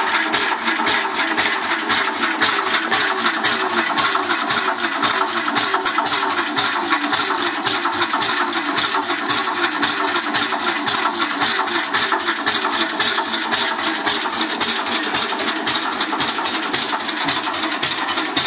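Ransomes MG crawler's single-cylinder petrol engine running at a steady idle, an even chugging beat of about five pulses a second.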